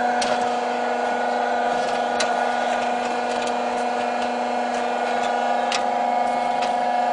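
Kids' ride-on excavator's motor and hydraulics running with a steady whine as the boom and bucket move, with a few sharp clicks along the way.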